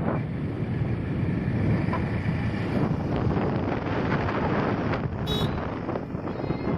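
Wind buffeting the microphone over the steady noise of a moving vehicle, with a brief high-pitched tone about five seconds in.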